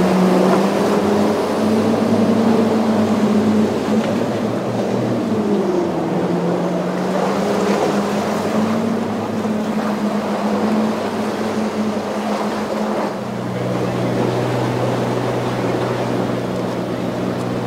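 Motorboat engines running through rough water, a steady drone that wavers slightly in pitch, over a wash of water and wind. A second, lower engine note joins about two-thirds of the way through.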